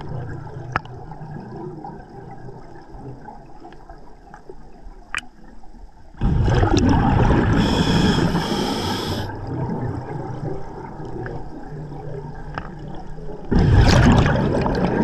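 Scuba diver breathing underwater through a regulator. After a quieter stretch with a few faint clicks, a loud bubbling rush starts suddenly about six seconds in and turns into a high hiss. Another bubbling rush begins near the end.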